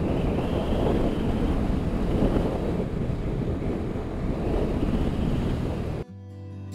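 Strong wind rushing and buffeting over the microphone of a moving motorcycle, a dense, even noise. About six seconds in, it cuts off suddenly and guitar music begins.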